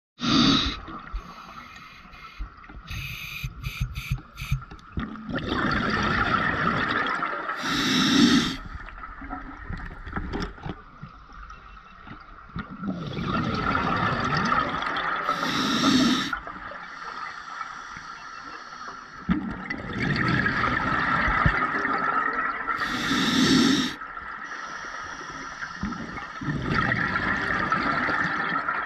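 Scuba diver breathing through a regulator underwater: slow breaths about every seven to eight seconds, each a long hiss ending in a loud rush of exhaled bubbles. A few sharp clicks come early on.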